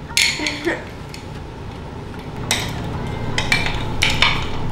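Kitchen clatter of pans and utensils being handled: a sharp clink just after the start, then a run of knocks and scrapes in the second half.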